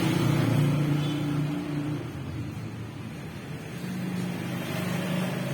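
Motorcycle engine running, louder for the first two seconds, then easing off and building up again near the end.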